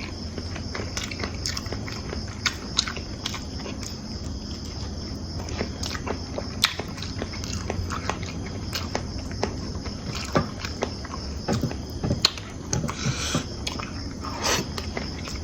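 Someone eating fried rice: chewing and biting, with scattered sharp clicks from eating. A steady high-pitched hum runs underneath.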